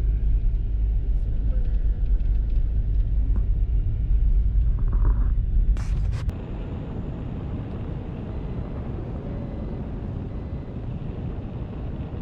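Car on the move, heard from inside the cabin: a steady low road and engine rumble. About six seconds in come a couple of sharp clicks, and the heavy rumble gives way to a quieter, even hiss.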